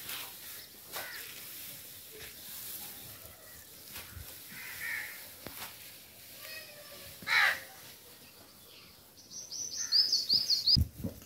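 Birds calling over faint outdoor background noise: one short harsh call about seven seconds in, then a fast run of loud, high-pitched chirps near the end.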